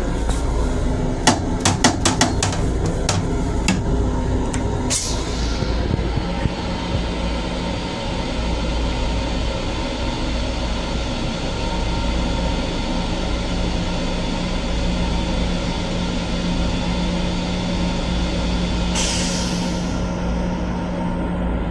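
Steady rumble and hum of a Long Island Rail Road M7 railcar, heard from inside its small restroom. A quick run of sharp rattling clicks comes in the first few seconds, and short hisses come about five seconds in and again near the end.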